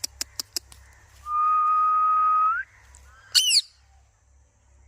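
A pet parrot's calls: a few short clicks, then one long steady whistle that flicks upward at its end, then a quick burst of sharp, falling high-pitched squawks.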